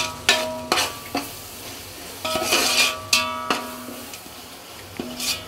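A metal ladle stirring and scraping through frying masala in a large metal pot, several strokes that strike the pot and leave it ringing, over the sizzle of hot oil.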